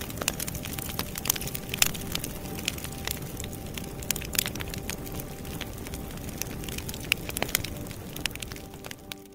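Wood fire crackling, with frequent sharp pops and snaps of varying loudness over a steady hiss.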